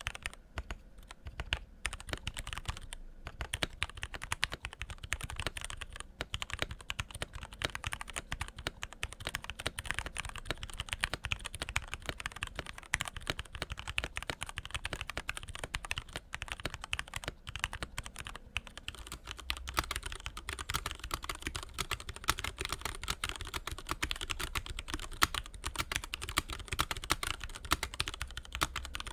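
Keychron K6 mechanical keyboard with Gateron Yellow linear switches, tuned stock stabilizers and a tape mod, being typed on in a steady, continuous stream of keystrokes, with a brief pause about three seconds in.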